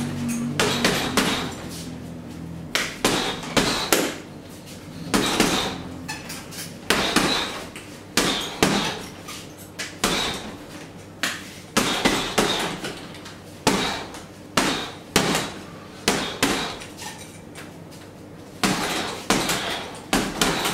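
Boxing gloves punching a heavy bag in quick combinations of two to four blows, one combination every second or two.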